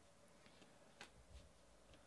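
Near silence, with a few faint clicks of trading cards being handled; the clearest click comes about a second in.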